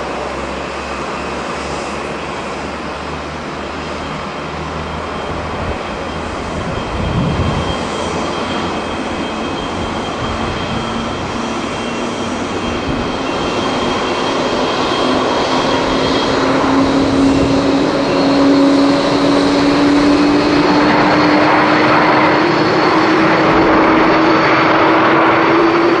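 Japan Airlines Boeing 787's GEnx jet engines on final approach and landing, a steady jet noise with a whine that slowly rises in pitch. From about twenty seconds in it grows louder and fuller as the engines spool up into reverse thrust on the rollout. There is a brief low rumble of wind on the microphone about seven seconds in.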